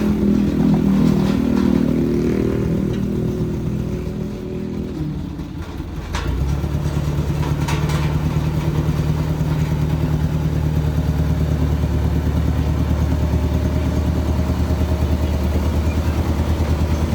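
A combustion engine running. After a brief dip about five seconds in, a steady low engine note with a fast, even pulse sets in and holds.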